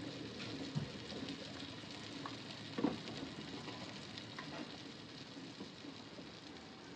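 Masala-coated fish pieces shallow-frying in oil in a small frying pan: a steady, quiet sizzle with a few light clicks, the clearest a little before the middle.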